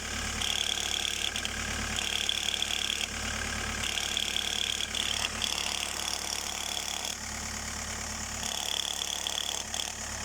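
Car engine idling from a cold start, with a tinny rattle that comes and goes in stretches of about a second. The rattle comes from a loose engine cover vibrating in the cold, and sounds like a knocking timing chain.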